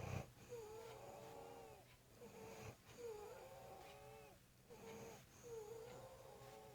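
A sleeping man's snoring breaths, each drawn out into a wavering wail in several pitches at once, like a few people or animals wailing together. Three long wails come about every two and a half seconds, with a short snort at the start and another about two and a half seconds in.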